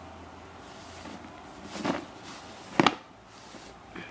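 A cardboard phone box being handled and turned over: a soft rub about two seconds in and a sharp tap or knock a little before three seconds, over a low steady hum.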